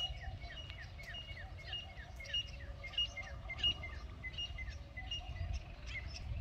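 A small bird calling over and over: short, high notes that each slide downward, about three a second. A low rumble runs underneath.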